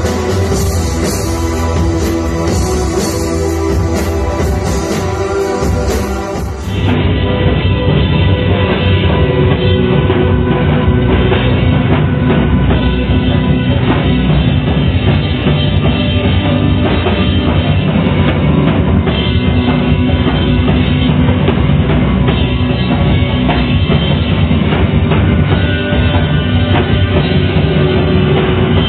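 Live rock music from keyboards and a Ludwig drum kit. About seven seconds in, the recording cuts abruptly to another stretch of the set, which sounds duller and a little louder with steady drumming.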